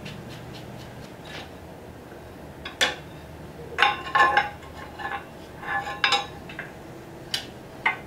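Metal hand tools clinking and clanking against each other and the front axle hardware, with a ringing tone after several strikes, as the front axle nut goes back on. Faint ticking in the first second or so, then a sharp click and a few clusters of clanks.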